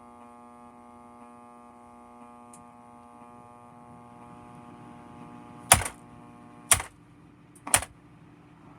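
Vintage alarm clock radio's speaker giving a steady electrical buzz, then three sharp clicks about a second apart, the speaker popping as the clock's light blinks. The buzz weakens at the first click.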